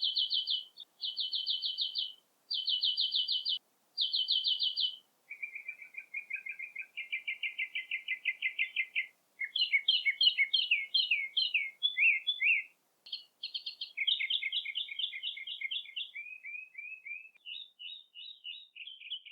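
A songbird singing a long, varied song of high, rapid trills: a string of short phrases, each a fast run of one repeated note, switching to a new note type every second or two, some phrases sliding down in pitch.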